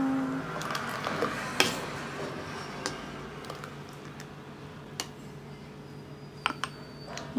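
Thick muskmelon juice being poured into a glass: a soft, fading liquid pour with a few light clicks, over a low steady hum.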